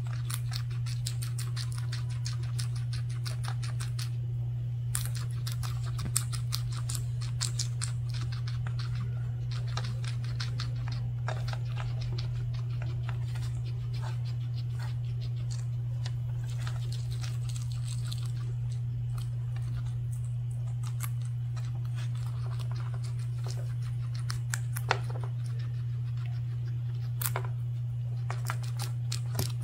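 Two guinea pigs chewing and crunching tong ho (garland chrysanthemum) stems: a dense run of crisp, rapid nibbling clicks with a few sharper crunches. A steady low hum runs underneath.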